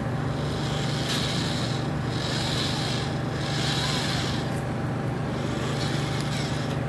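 An idling engine with a steady low hum. Three short, soft hissing swells come between about one and four seconds in.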